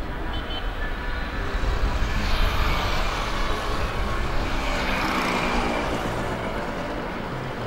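A passing vehicle: a rushing engine noise with a low rumble, swelling about two seconds in and easing off toward the end.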